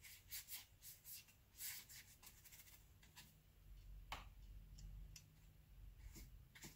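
Faint, irregular strokes of a wet flat watercolour brush scraping across sketchbook paper while it lays down clear water before a wash, with one slightly stronger stroke about four seconds in.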